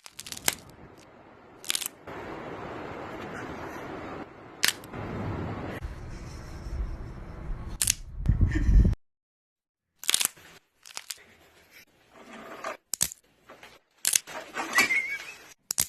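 Neck cracks: a string of single sharp snaps a few seconds apart over a steady background noise, with a loud low rumble about halfway through.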